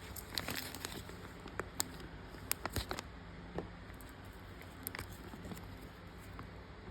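Faint scattered clicks and light rustling from small objects being handled, thinning out after about three seconds.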